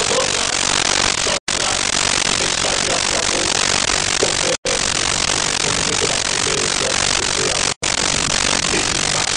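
Loud steady hiss of recording noise, with a faint voice barely showing through it. Three times, about every three seconds, the sound drops out completely for a split second.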